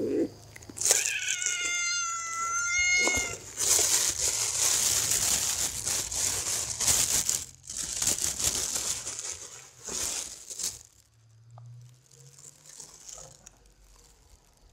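A stray kitten gives one long begging meow, lasting over two seconds, about a second in. It is followed by several seconds of loud rustling noise, then quieter scattered rustles.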